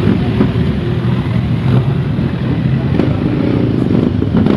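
Several motorcycle engines running together, loud and steady.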